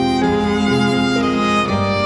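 Background music: a melody of held notes that change every half second or so.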